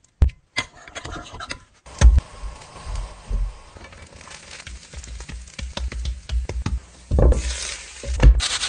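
Kitchen food-prep noises: scattered taps and knocks of utensils and a pan over a faint hiss, then a loud scraping for the last second or two.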